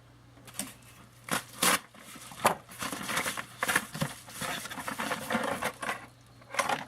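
Packaging crinkling and tearing in irregular bursts as a small auto part is unwrapped by hand.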